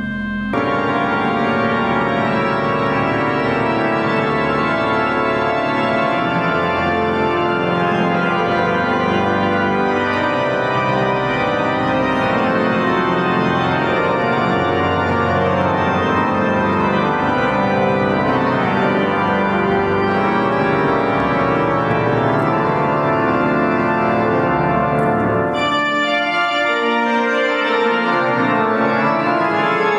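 Large cathedral pipe organ, the main organ of Königsberg Cathedral, played full with many sustained notes sounding together. It swells in about half a second in, and near the end the deep bass notes drop out, leaving only the upper voices.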